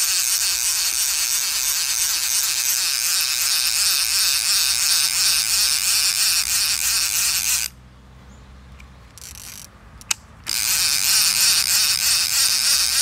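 Round baitcasting reel's ratchet click buzzing steadily as the handle is cranked to wind line onto the spool, with the click safety engaged. The cranking stops for about three seconds near the eight-second mark, with one click in the pause, then starts again.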